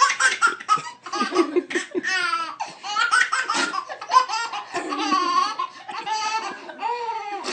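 A baby laughing in a long string of high-pitched bursts.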